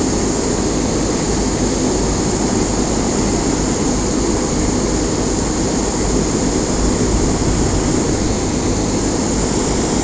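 Combine harvester running under load while its unloading auger pours grain into a tarp-covered trailer: a steady, unbroken engine and grain-flow noise.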